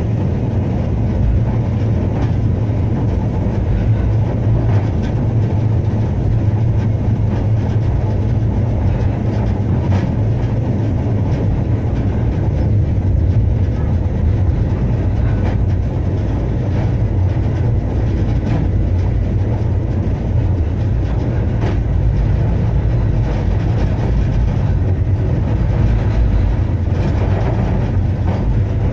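Blackpool Balloon double-deck tram 715 running along the track, heard from inside the car: a steady low rumble of the traction motors and wheels on the rails, with occasional faint rail clicks.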